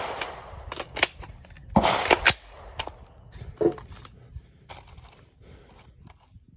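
Repeated gunshots: a string of sharp reports of differing loudness, the loudest a close cluster about two seconds in, with fainter shots between.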